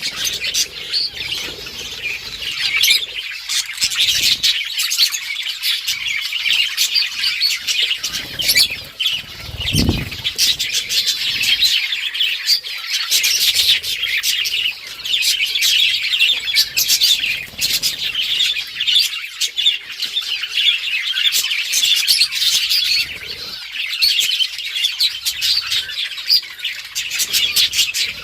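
A flock of budgerigars chattering, with many chirps overlapping without a break. There is a brief low thump about ten seconds in.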